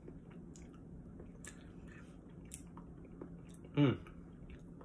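A person chewing a mouthful of soft, chewy noodles in cheese sauce: faint wet clicks and smacks. About four seconds in there is a short vocal sound from the eater.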